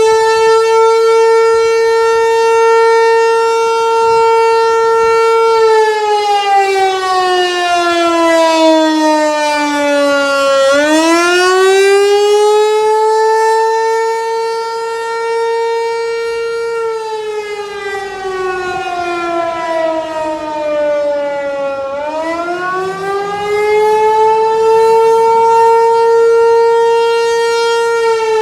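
American Signal Tempest T128 electromechanical outdoor warning siren sounding a wail during its monthly test. The pitch holds high, falls over about five seconds, climbs back, holds, then falls and rises again twice, starting to drop once more near the end.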